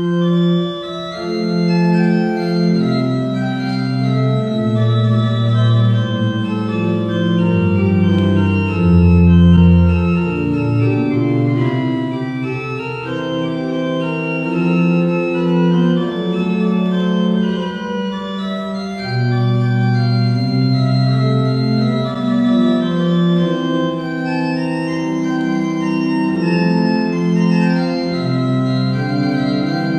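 Church pipe organ playing held chords over a moving bass line, the notes changing every second or two.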